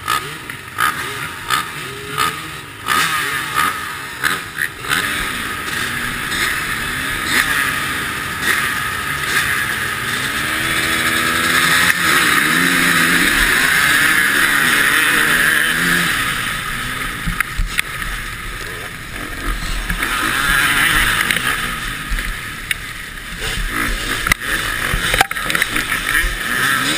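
Motocross bike engines at a race start, heard from a helmet camera on one of the bikes. Engines rev in sharp blips at the line, then the rider's own bike pulls hard with its pitch rising as it accelerates, under heavy wind noise on the microphone.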